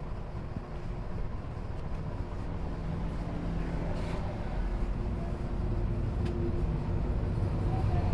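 Steady low rumble of running machinery, with a couple of faint sharp clicks about four and six seconds in.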